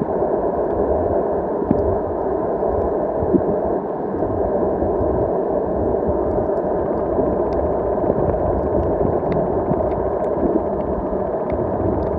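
Steady, muffled underwater water noise heard through a submerged camera, with faint scattered ticks.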